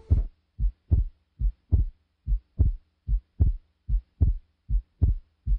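Heartbeat sound effect: a steady lub-dub of short, low thumps in pairs, a little more than one pair a second.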